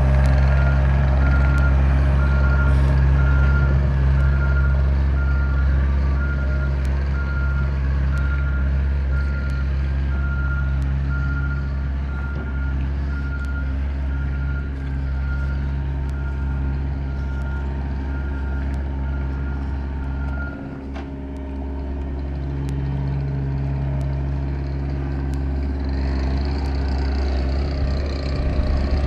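Skid steer engine running under steady load while its reverse alarm beeps in an even series, the beeping stopping about two-thirds of the way through as the machine stops backing up.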